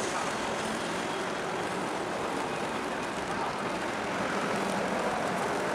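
Steady outdoor harbour background noise: an even rumble and hiss of distant engines and wind, with no distinct event standing out.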